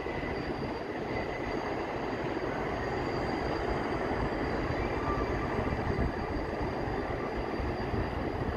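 New York City Subway 7 train of R188 cars running across the elevated steel viaduct: a steady rail rumble with faint high wheel-squeal tones above it.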